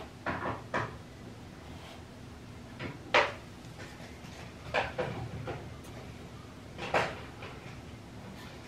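Handling noise from a picture frame and its mat board being worked on by hand: several short knocks and scrapes, the loudest about three seconds in.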